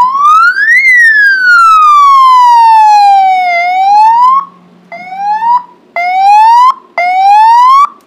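Aftermarket electronic police siren on a motorcycle, with its outer housing removed, wailing: one long sweep that rises, falls slowly and rises again, then three short rising whoops about a second apart, each cut off abruptly.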